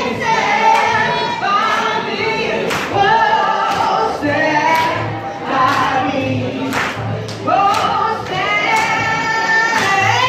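Singing through a microphone with several voices together, over a steady beat of sharp strokes about every second and a half.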